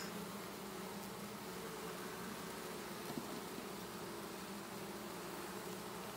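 A honeybee swarm massed in a box, buzzing steadily with an even hum. A single light tap about three seconds in.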